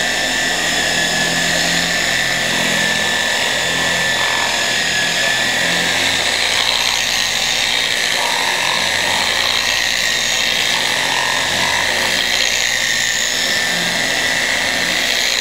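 Handheld electric car polisher running steadily, its orange pad spinning against car paint: a constant high whine with a hiss over it.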